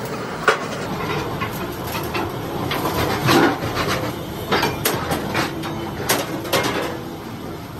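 Scattered metallic clanks and knocks as rolled steel tank shells and a steel bar are handled, over a steady noisy workshop background.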